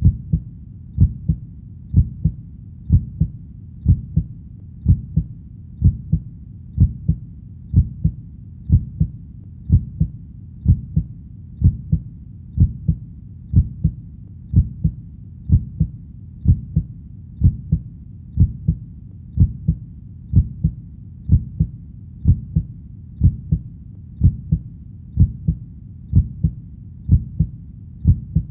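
Human heartbeat: a steady lub-dub, each beat a pair of low thumps, at about one beat a second.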